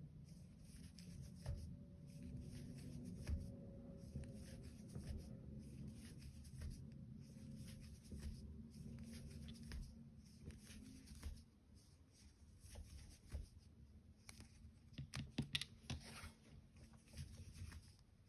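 Faint scratching and rustling of a metal crochet hook working soft chenille yarn by hand, with small irregular clicks that come more often near the end.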